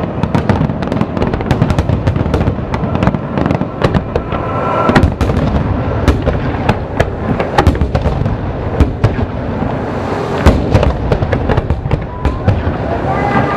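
Aerial fireworks display: a dense, continuous barrage of shell bursts and crackling, with sharp bangs following one another every fraction of a second.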